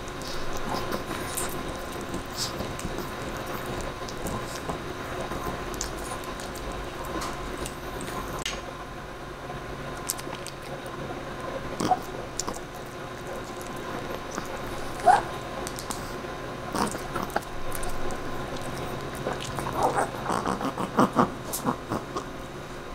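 A Chihuahua gnawing and chewing a calf neck bone: irregular clicks of teeth on bone, with a quick run of bites near the end.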